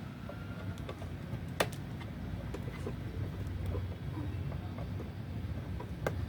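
Light clicks and handling noises from PC parts being fitted, with one sharper click about a second and a half in, over a steady low rumble.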